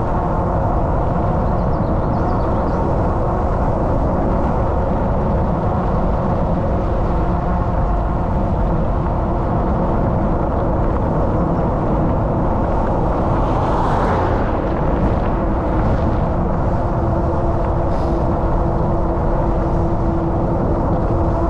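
Steady rush of wind over a bike-mounted camera's microphone, with tyre noise from a bicycle rolling on asphalt. A brief harsher gust comes about fourteen seconds in, and a steady hum comes in near the end.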